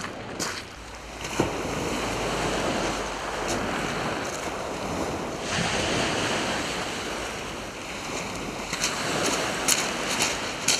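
Small waves breaking and washing on a shingle beach, with some wind on the microphone. A few light clicks near the end.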